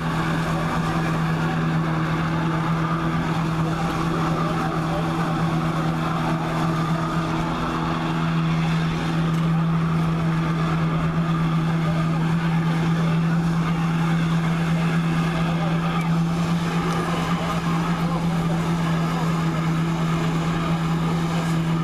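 Jet ski engine running hard at a steady pitch, driving a flyboard's water jets through its hose, over a hiss of spray; it gets a little louder about eight seconds in.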